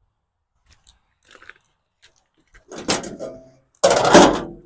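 Sheet-metal hood panel of a Ford 8N tractor being lifted and handled: a few faint ticks, then metal scraping and rattling with some ringing about two and a half seconds in, and a louder scrape near the end.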